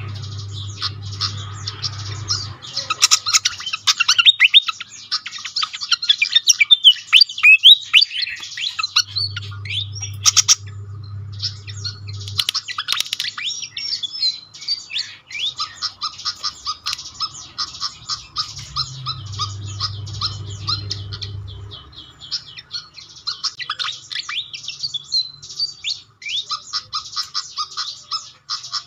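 Malaysian pied fantail singing and calling: a fast run of squeaky, high chirps and twittering phrases with short breaks, loudest in the first third. A low hum comes and goes three times underneath.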